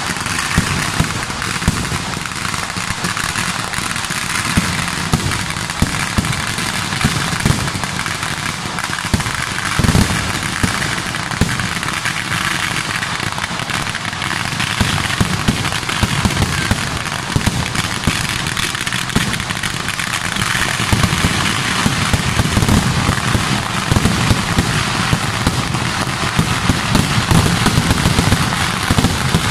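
Temple fireworks going off in a dense, continuous barrage of crackling and many sharp bangs. The barrage grows louder over the last third.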